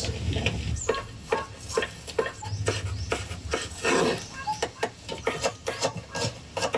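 Irregular sharp taps and knocks of food being prepared by hand, ending in a knife chopping onions on a cutting board, the taps coming faster near the end.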